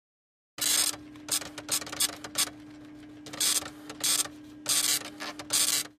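A printer printing: a run of short, uneven mechanical bursts over a steady hum, starting about half a second in.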